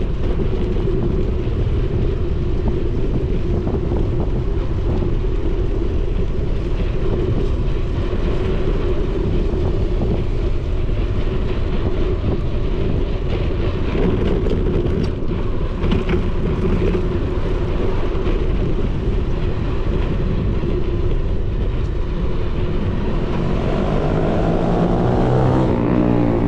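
Steady wind rush and rolling noise on a bicycle-mounted action camera's microphone while riding. Near the end a motor vehicle's engine rises in pitch as it speeds up close by.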